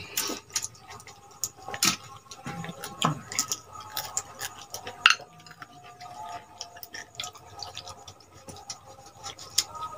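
Eating pakhal (watered rice) by hand from stainless-steel bowls: scattered small clinks of fingers and rice against the steel, with wet dabbing and mouth sounds, and one sharp click about five seconds in.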